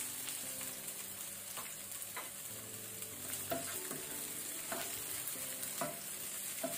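Green peas, diced red bell pepper and garlic sizzling in oil in a nonstick frying pan while a wooden spatula stirs them, with a scraping stroke against the pan about once a second.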